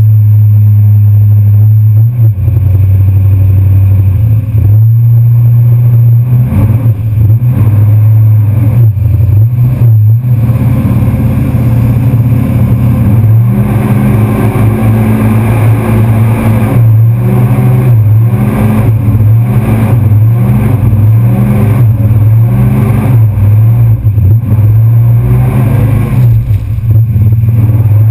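Pickup truck engine running loud and close while the truck wades through swamp water and mud. The engine is steady at first, then from about halfway it revs up and down in repeated surges as the driver works the throttle.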